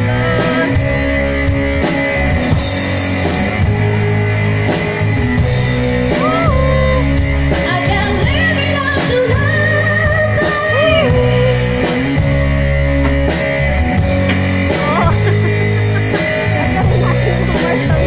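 Background rock song with guitar and a singing voice.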